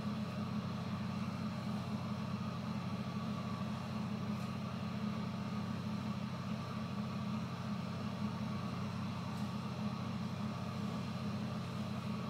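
Steady low machine hum, like a fan or motor running, unchanging throughout.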